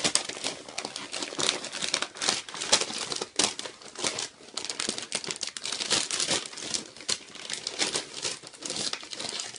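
Brown wrapping paper crinkling and rustling in irregular crackles as a toddler handles and pulls open a paper-wrapped present.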